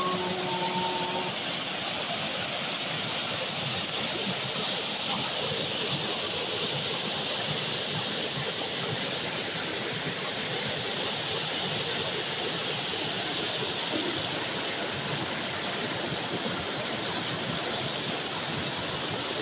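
Creek water rushing steadily over rock ledges in small cascades and rapids.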